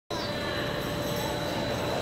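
Steady background noise of a large room, with a constant high whine and a fainter steady lower tone running through it.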